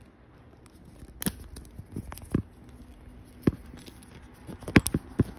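Hands working a zip tie and the motor cable against the e-bike's front fork: a handful of irregular plastic clicks and taps, the loudest cluster near the end.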